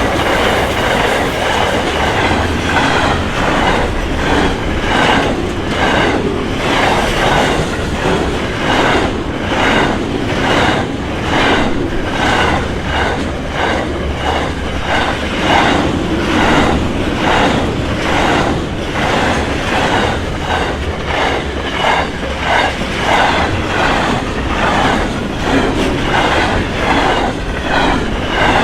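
Freight train wagons rolling past, their wheels clicking in a steady, even rhythm of about two clicks a second over a low rumble.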